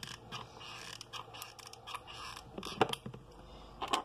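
Scattered small clicks and light scrapes of tumbled crystal stones being handled and pressed into place while gluing with a hot glue gun, with two sharper clicks near the end.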